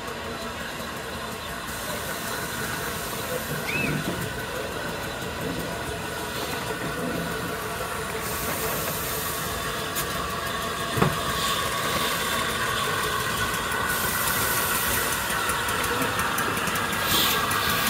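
LNER A3 Pacific steam locomotive Flying Scotsman moving slowly past at shunting speed, with a steady steam hiss that grows louder toward the end. There is a single sharp clank about eleven seconds in.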